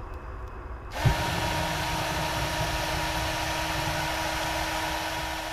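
Handmade model turbojet engine on its test stand, setting off abruptly about a second in with a steady rush of air and a constant whine that does not change in pitch.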